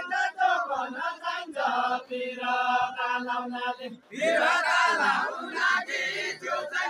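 Group of men singing a Deuda folk song together in a chanting chorus, with some notes held. There is a short break about four seconds in, then more voices come in louder.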